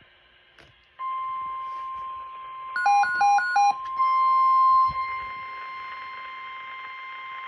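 Emergency alert tones from a radio broadcast. A steady single tone near 1 kHz starts about a second in and holds. Three short beeps of several pitches sound over it about three seconds in, and the tone comes in louder for about a second around four seconds in.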